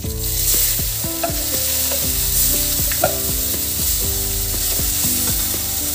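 Onion paste going into hot oil with cumin seeds and bay leaves in a kadai: a loud sizzle that starts suddenly as the paste goes in and carries on steadily as it fries.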